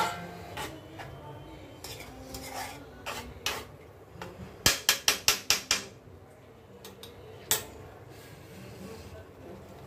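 Spatula scraping and knocking against a non-stick kadai as chicken in yogurt is stirred. It gives scattered sharp knocks, with a quick run of about six about five seconds in.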